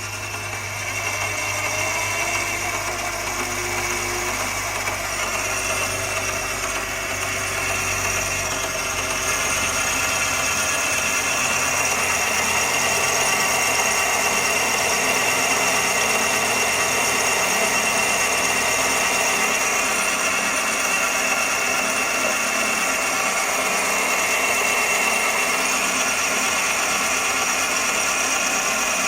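A 7x14 benchtop mini lathe running, its motor and spindle gears making a steady mechanical whine and hum. It grows gradually louder over the first dozen seconds, then holds steady.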